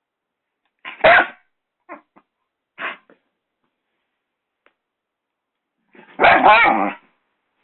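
Doberman puppy barking: a sharp bark about a second in, two shorter ones after it, then a longer, louder burst of barking near the end.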